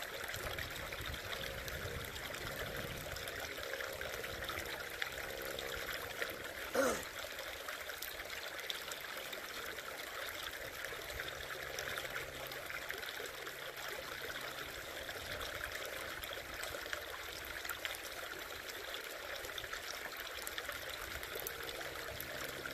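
Shallow rocky creek trickling steadily, with one short pitched gliding sound about seven seconds in.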